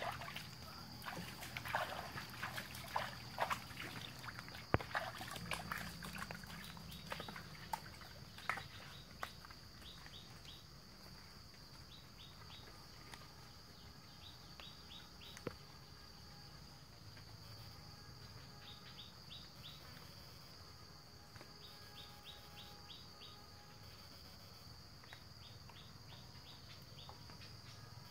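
Hands splashing and sloshing in shallow muddy water for the first several seconds. Birds then chirp in short quick series over a steady high-pitched insect drone.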